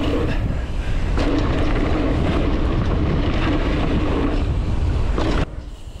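Wind buffeting the camera microphone as a mountain bike speeds along a dirt track, with the tyres rolling over the dirt underneath. It cuts off sharply about five and a half seconds in.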